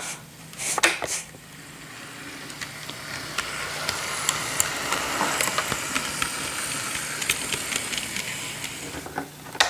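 ScaleTrains SD40-2 model locomotive running along its track: a steady whirring hiss with a faint hum and a scatter of small ticks, building up about a second and a half in after a couple of sharp clicks, with another click near the end.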